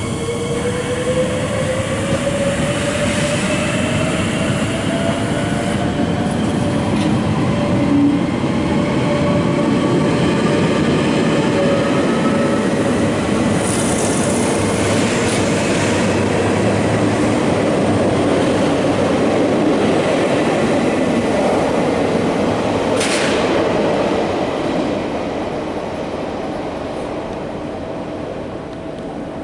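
Double-deck electric train pulling out of an underground station: a steady rumble with a whine rising slowly in pitch as it gathers speed, fading over the last few seconds as it leaves.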